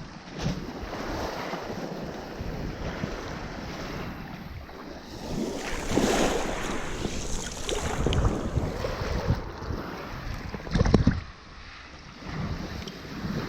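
Sea waves breaking and washing on the shore, with wind buffeting the microphone. The wash surges several times, loudest about eleven seconds in.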